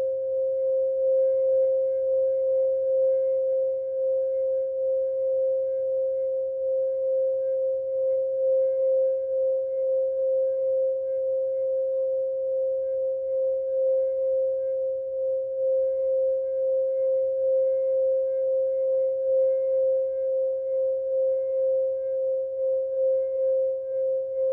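Quartz crystal singing bowl sounding one steady pure tone at about 528 Hz, with faint higher overtones and a slight waver in loudness.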